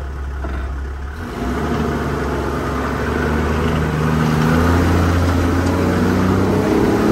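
Toyota Land Cruiser's engine running off-road, heard from inside the cabin. It picks up about a second in and grows steadily louder, holding an even note.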